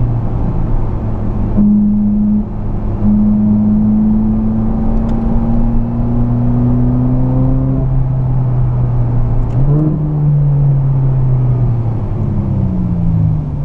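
Ferrari 458's V8 engine heard from inside the cabin, running at a steady moderate pace with its note rising slowly. About ten seconds in the pitch steps up sharply, then falls away as the car eases off near the end.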